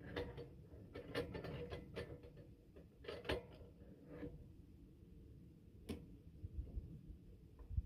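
Irregular mechanical clicks and light knocks over a low rumble, thick in the first few seconds, then sparser, with one sharp knock about six seconds in.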